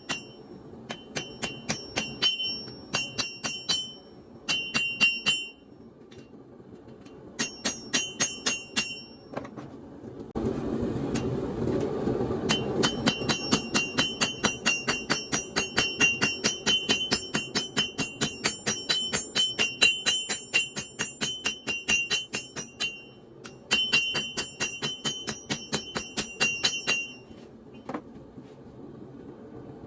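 Hand hammer forging hot leaf-spring steel on an anvil: runs of quick blows, each with a bright metallic ring, broken by short pauses. A steady rushing noise rises for a few seconds near the middle while the strikes continue.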